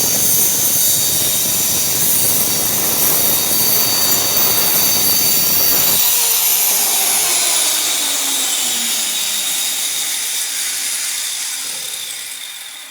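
Woodworking power tool running under load, then switched off about six seconds in: its pitch falls steadily as it spins down.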